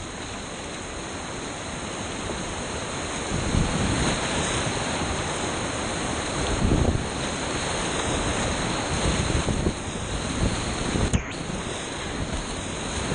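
Whitewater rapids rushing and splashing around a kayak, close to the microphone, with irregular low rumbles of wind or water buffeting it. A single sharp knock comes about eleven seconds in.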